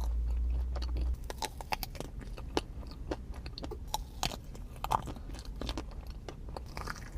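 A pastry being bitten into and chewed close to the microphone: a run of short, crisp crunches and crackles at an uneven pace.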